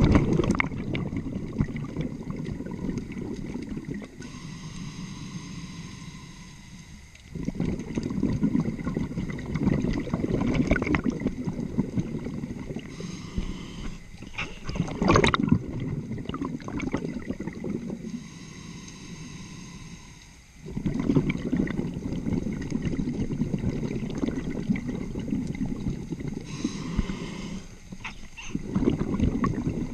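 Scuba diver breathing through a regulator underwater: long gurgling rushes of exhaled bubbles alternate with quieter, hissing inhalations in a slow, even cycle.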